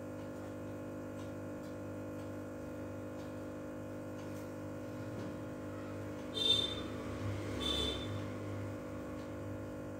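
Steady low electrical hum of room tone. A little past halfway come two short rustles, which sound like the phone being handled.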